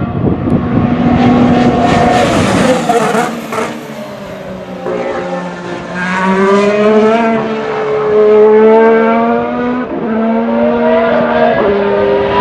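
A Formula 1 car's 1.6-litre V6 turbo-hybrid engine at speed. A loud rushing pass comes in the first few seconds, then the engine note climbs and drops back in steps at upshifts twice near the end.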